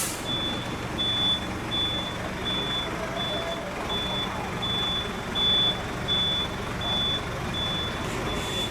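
Truck's reversing alarm beeping at an even pace, a little under two high beeps a second, over the low running of its engine: the truck is backing up.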